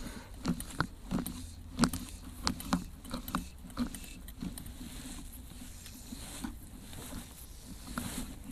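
Irregular soft clicks and rustles of fly line being gathered by hand in a figure-of-eight retrieve, with hand and sleeve handling noise, over a low steady rumble.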